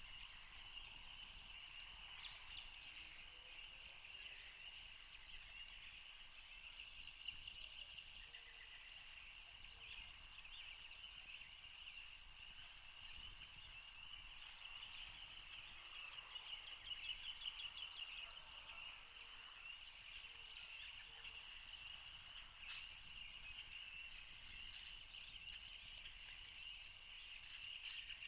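Faint outdoor ambience: a steady high-pitched chorus of calling animals, with scattered faint bird chirps and a single sharp click about two-thirds of the way through.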